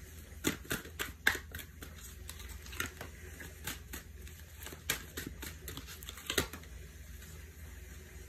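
Oracle cards being handled and laid down on a cloth: irregular light taps and flicks, a few sharper than the rest.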